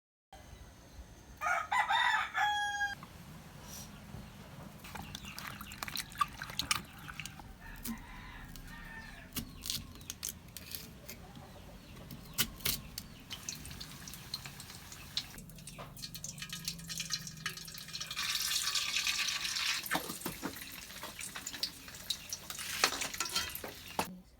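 A rooster crowing once, about a second and a half in, followed by scattered clicks and knocks. Later there are stretches of hissing noise.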